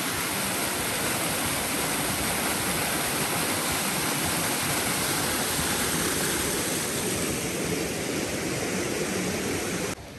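Steady rush of falling, splashing water from a water-park water feature, cutting off suddenly near the end.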